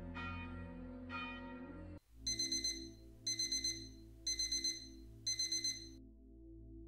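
A bell strikes twice and rings on. Then a clock radio alarm beeps in four bursts of rapid high beeps, one burst a second, stopping about six seconds in.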